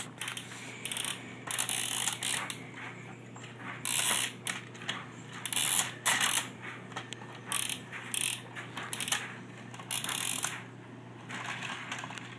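A plastic toy railway turntable and engine handled by hand: repeated irregular bursts of clicking and rattling as the turntable is turned and the toy engine is pushed across its track, over a steady low hum.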